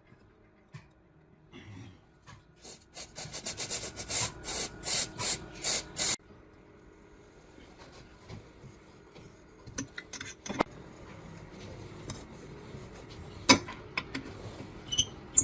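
Hand scraping strokes, as in filing or sanding, building to a steady rhythm of about two strokes a second for several seconds, then stopping abruptly. A few sharp clicks and knocks follow.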